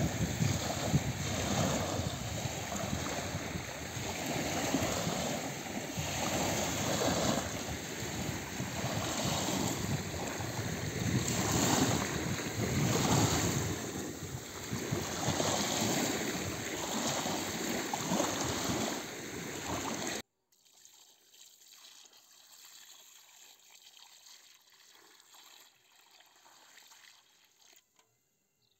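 Small lake waves lapping and washing over a pebble shore, swelling and easing every second or two. About two-thirds of the way through the sound cuts off abruptly, leaving only a faint background.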